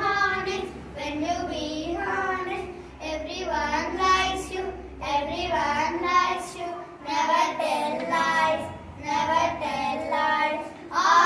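Young children singing together in a short-phrased action song, each line followed by a brief pause.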